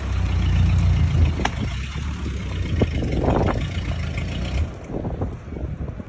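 Engine of the machine pulling on the tree's rope, running steadily and dropping off sharply about three-quarters of the way through. Two sharp clicks are heard in the first half.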